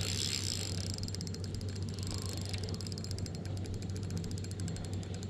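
Spinning fishing reel ticking rapidly and evenly while a hooked smallmouth bass fights on light line, starting about a second in, over a steady low hum.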